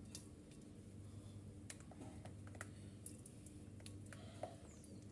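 Faint, irregular light clicks of a utensil against a pot as a lemon cream of eggs, lemon juice and zest is stirred slowly, over a steady low hum.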